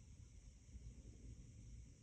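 Boxer dog snoring faintly, a low fluttering rattle in its breathing.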